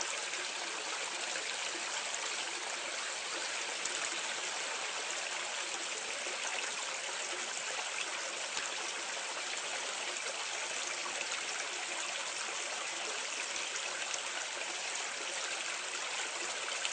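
Water pouring and splashing steadily down a drain outlet, heard from medium distance: an even, continuous rush with a light trickling patter on top.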